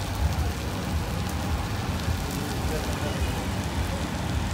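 Steady frying hiss of a huge batch of chowmein noodles on a large street-stall pan, with a low rumble underneath.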